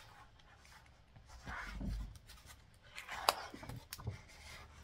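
Faint rubbing and handling of a paper sketchbook page under a hand, with a light click a little over three seconds in.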